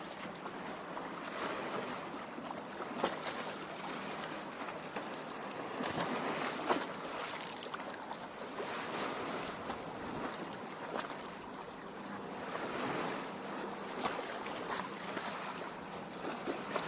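Small lake waves lapping at a rocky shore: a steady wash of water with irregular little splashes and slaps.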